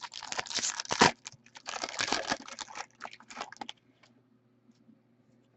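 Foil trading-card pack wrapper crinkling and tearing as it is ripped open, in two bouts, followed by a few light clicks of card handling.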